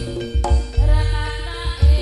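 Live jaranan ensemble music, Javanese traditional style: a wavering melodic line over held tones, punctuated by a few heavy low drum strokes.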